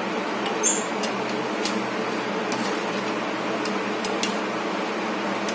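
Steady rushing of a gas stove burner under a pan of boiling soup, with a few light clicks of a wire-mesh skimmer touching the steel pan.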